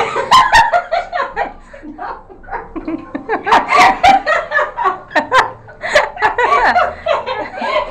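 A woman laughing hard in repeated bursts, mixed with a little talk.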